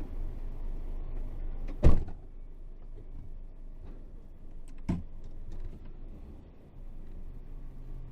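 Isuzu 8x4 truck's diesel engine idling with a steady low rumble. A loud thump comes about two seconds in, and a lighter knock about three seconds later.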